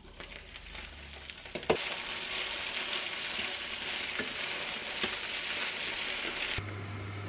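Eggplant pieces sizzling in oil in a frying pan while being stirred with a wooden spatula, with a sharp knock a little under two seconds in. Near the end the sizzling stops abruptly and a low steady hum is left.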